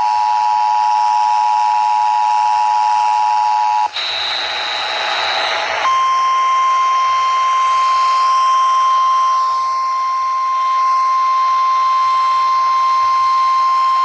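Emergency Alert System alert tones from a radio, announcing a severe thunderstorm warning. A chord of close steady tones sounds for about four seconds, then a brief high tone with static. After that comes one long, steady single-pitch tone, the warning alarm tone that comes just before the spoken warning.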